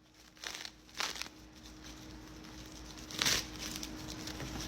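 A few brief crinkling, rustling handling sounds, the loudest about three seconds in, over a faint steady hum.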